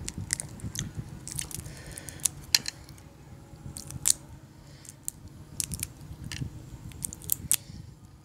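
Close-up eating sounds: chewing with mouth noises, broken by sharp, irregular crackles and clicks of prawn shell being peeled and cracked by hand.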